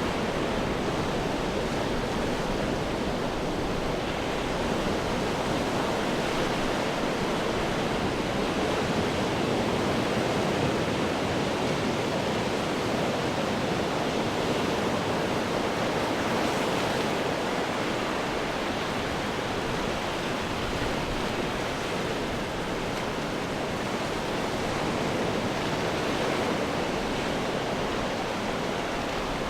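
Ocean surf breaking and washing over rocks, heard as a steady, dense rushing noise that swells only slightly in level.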